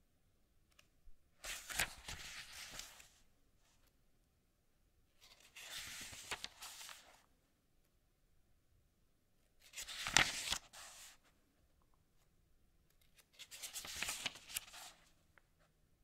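Pages of a paper book being turned by hand: four separate page flips about four seconds apart, each a papery rustle lasting one to two seconds.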